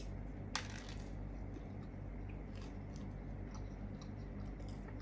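Faint handling noises from a pretzel being handled: one sharp crackle about half a second in, then scattered soft clicks, over a steady low hum.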